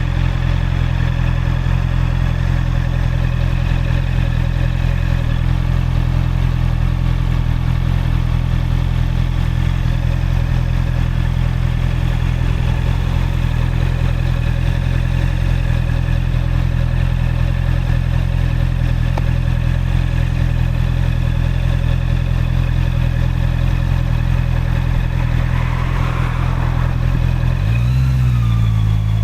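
Honda CB650R's inline-four engine idling steadily. Near the end its pitch dips briefly, then rises as it accelerates.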